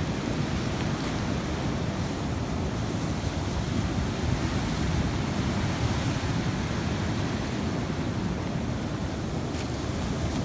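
Sea surf washing steadily on the shore, with wind buffeting the microphone.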